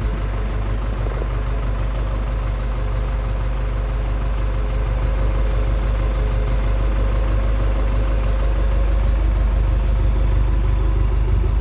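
Backhoe loader engine running steadily at idle, growing slightly louder toward the end.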